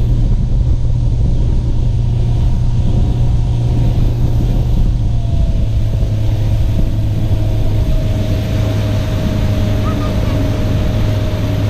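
Bass boat's outboard motor running steadily under way at speed, a loud, even engine drone.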